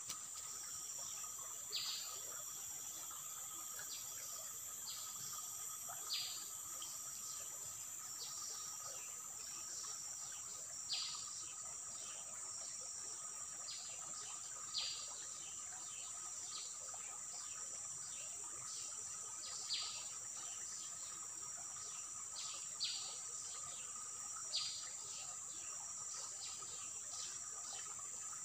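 Steady high-pitched drone of insects, with short sharp chirps every two to five seconds.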